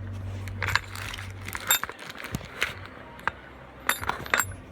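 Metal tools clinking and knocking as a socket and C-clamp are fitted against a jet pump housing to press in a small bearing. The sound is a series of irregular sharp metallic clinks with a slight ring.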